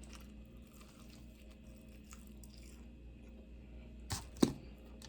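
Quiet chewing of food, then two short sharp crunches about a third of a second apart, a little after four seconds in.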